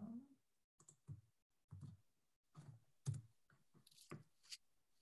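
Faint, scattered clicks and taps of a computer keyboard and mouse, about seven separate strokes spread unevenly through near silence.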